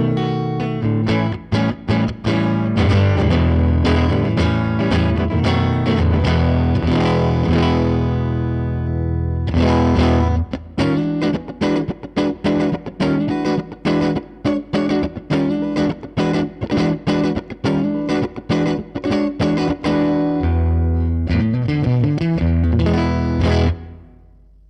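Electric guitar, a Fender Stratocaster, played through a Line 6 Helix amp and cab model with a distorted tone. Ringing chords give way about ten seconds in to short, choppy rhythm strokes, then a few held low notes. The playing stops shortly before the end, leaving a faint amp hum.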